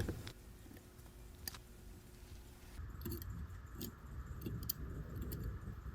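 Faint small metallic clicks and taps of watchmaker's tools and small steel parts being handled while a pocket watch movement is taken apart, with a few sharp clicks about a second and a half in and between three and five seconds in.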